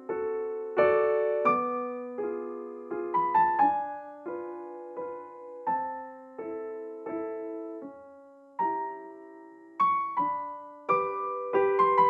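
Slow background piano music: single notes and chords struck one after another and left to ring and fade.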